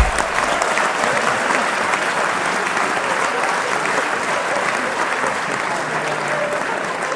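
Steady crowd applause, many hands clapping at an even level.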